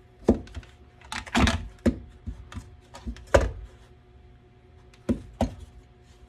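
Irregular clicks and knocks of objects being handled and set down on a workbench, a cluster of them in the first few seconds and two more near the end, over a faint steady hum.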